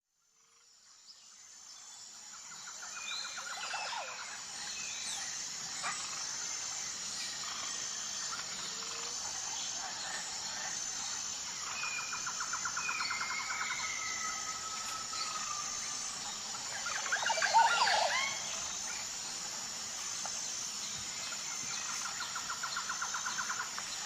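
Birds calling and chirping, with quick trills and short sliding calls, over a steady high-pitched pulsing drone. The sound fades in at the start, and the loudest burst of calls comes about two-thirds of the way through.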